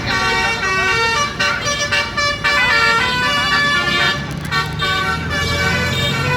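Bus's Basuri 'telolet' multi-tone air horn playing a fast melodic tune, its notes changing every fraction of a second. A low engine rumble joins in about four seconds in.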